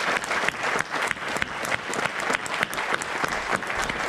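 A congregation applauding: many people clapping steadily together in a large room.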